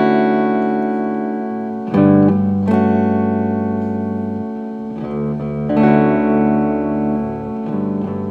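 Guitar music: chords struck every couple of seconds and left to ring out.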